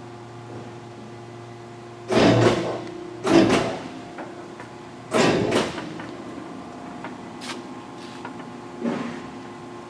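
Large 1982 Tuda Jumbo 1250/4000 engine lathe running with a steady hum, broken by four loud heavy clunks about two, three and a half, five and nine seconds in as its headstock controls are worked to change spindle speed. The lowest part of the hum drops out after the first clunk.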